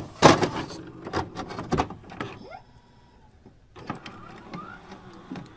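Digital glitch sound effects: a loud crackling burst of clicks at the start, then scattered sharp clicks and short rising electronic chirps, with a brief lull in the middle.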